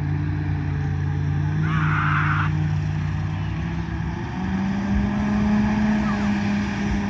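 Volvo B7TL double-decker bus's six-cylinder diesel engine running under way with a steady drone, which steps up in pitch about four seconds in as the engine picks up revs.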